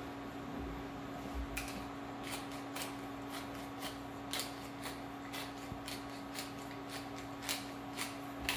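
Wooden pepper mill being twisted by hand, grinding peppercorns: a series of short, dry crunching clicks at roughly two a second, starting about a second and a half in. A steady low hum runs underneath.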